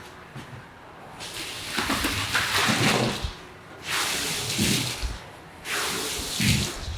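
Wet carpet being worked in long, repeated swishing strokes, about three in a row with short pauses between, each with a hissing, watery scrape and a low thud.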